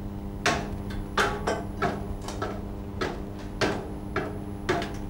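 Footsteps on the rungs of a folding metal attic ladder: a run of about nine knocks, roughly two a second, as someone moves on the ladder.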